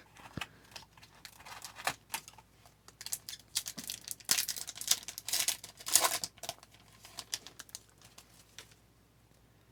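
A plastic trading-card pack wrapper being torn open and crinkled by hand, with crisp irregular clicks and rustles of the cards being handled. The rustling is busiest in the middle and dies away near the end.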